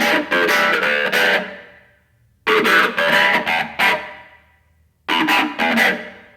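Guitar strummed in three short bursts of a few quick chords, each left to ring out and fade away.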